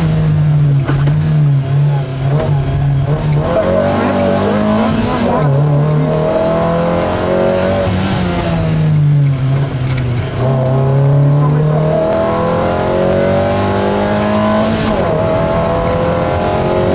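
MG F's mid-mounted 1.8-litre Rover K-series four-cylinder engine heard from inside the cabin, driven hard at rally pace. Its pitch climbs under acceleration and drops sharply several times at gear changes and braking.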